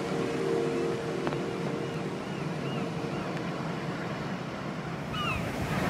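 Ocean surf breaking and washing around rocky reefs: a steady rushing of waves, with a few faint high chirps over it.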